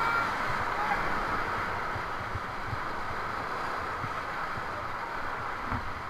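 Steady rush of fast river water around a paddled raft, easing slowly.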